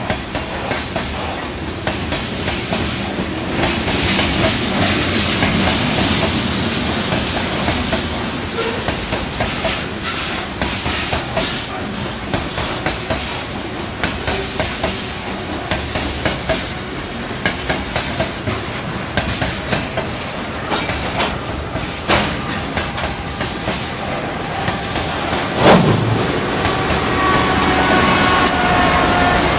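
Freight train cars rolling past, wheels clacking steadily over the rail joints. A loud bang about 26 s in is followed near the end by a faint rising whine.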